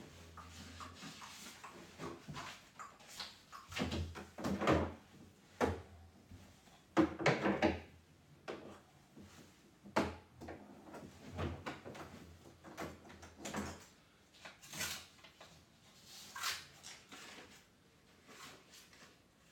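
A young child cutting paper with scissors at a plastic play desk: irregular snips, paper rustling and light knocks, with the longest, loudest rustle about seven seconds in.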